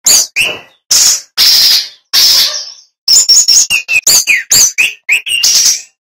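Male brown-chested jungle flycatcher (sikatan rimba dada coklat) singing loudly: a rapid string of short whistled notes with quick high up-and-down slurs and downward-sliding notes, broken by a few harsh, raspy notes in the first half.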